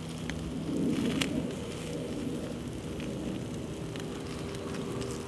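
Campfire coals crackling, with scattered sharp pops and a short louder rustle about a second in.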